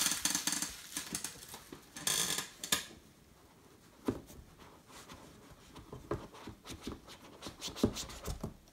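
Product packaging being handled: rustling and sliding for about the first three seconds, then scattered light taps and knocks.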